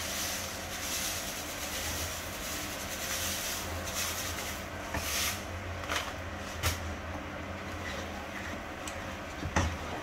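Sugary sauce sizzling in a frying pan, a steady hiss over a low hum, with a wooden spatula knocking and scraping against the pan a few times, loudest near the end.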